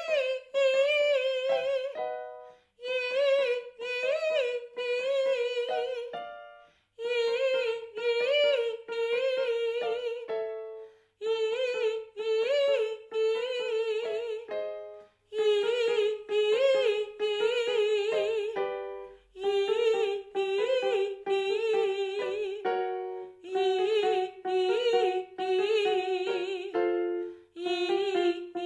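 A woman singing a fast vocal agility exercise on a bright, repeated 'ee', in runs of about four seconds with the pitch flicking up and down quickly. Each run starts a step lower than the last, with a short accompanying chord between runs.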